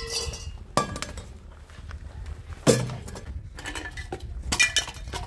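A few sharp knocks and clinks of hard objects being handled and set down: one at the start, one about a second in, the loudest and deepest near three seconds, and a quick cluster near the end. A steady low rumble runs underneath.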